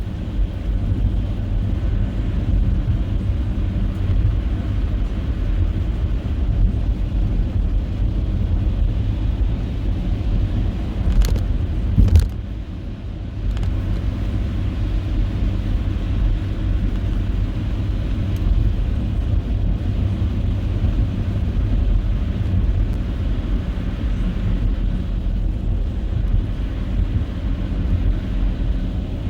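A car driving through snow, with a steady low engine and tyre rumble. Two short sharp knocks come about 11 and 12 seconds in, followed by a brief dip in the rumble.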